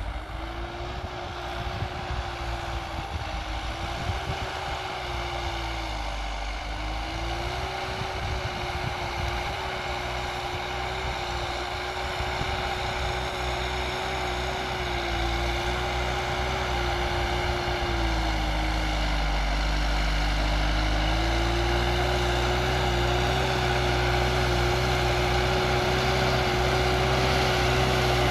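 New Holland TT4.75 tractor's diesel engine working under load while pulling a plough through the soil. The engine note sags twice and recovers, a few seconds in and again just past the middle, and the sound grows steadily louder as the tractor comes nearer.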